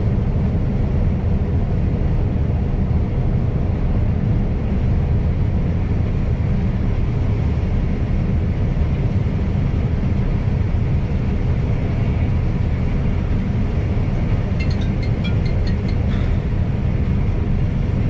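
John Deere combine harvester running, heard from inside its cab: a loud, steady low drone of engine and machinery. About fifteen seconds in, a short run of half a dozen quick ticks sounds over it.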